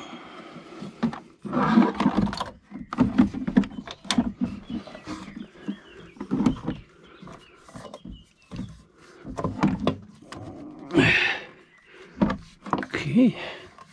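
Handling noises as a silicone intake hose and its metal clamps are worked into place among the plastic parts of an engine bay: irregular knocks, clicks and rubbing, with a few short low-pitched sounds mixed in, the loudest about eleven seconds in.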